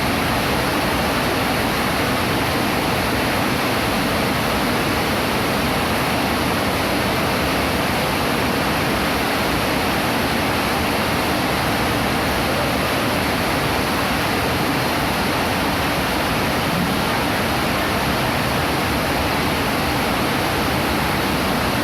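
Heavy rain falling steadily, a dense even hiss without letup.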